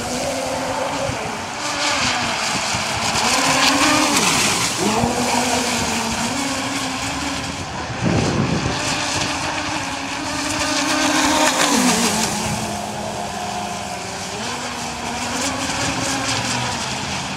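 Twin brushless outrunner electric motors of an RC catamaran speedboat whining at speed, the pitch rising and falling with the throttle, over the hiss of water spray off the hull. About eight seconds in there is a louder rush of spray as the boat turns.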